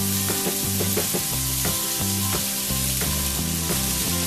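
Diced vegetables sizzling in hot oil in a wok as cooked basmati rice is tipped in on top, under background music with steady notes.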